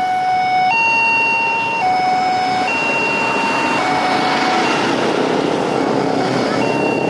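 A two-tone hi-lo siren switching between its two pitches about once a second, growing fainter after about four seconds. A broad rushing noise swells up beneath it from about three seconds in.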